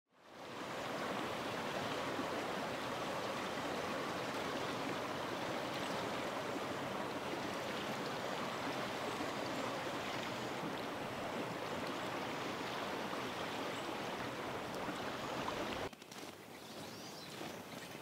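A creek running steadily, fading in at the start and cutting off abruptly near the end. After the cut the sound drops to a quieter outdoor ambience with faint footsteps in snow.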